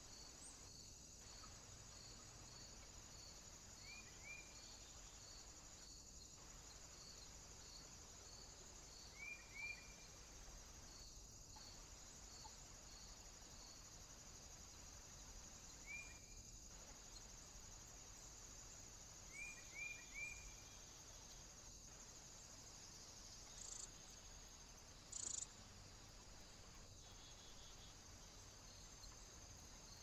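Faint insect chirping, a regular pulse about twice a second over a steady high hiss, with a few short high bird call notes, single or in quick runs of two and three. Two brief louder scratchy noises come near the end.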